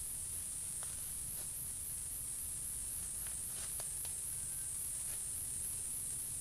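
Insects chirping in a steady, high-pitched pulsing chorus at about four pulses a second, with a few faint ticks.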